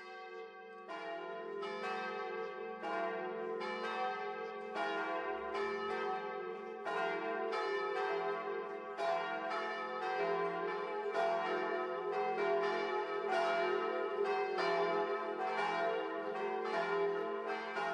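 Church bells ringing, several bells struck one after another about once or twice a second, their tones ringing on and overlapping.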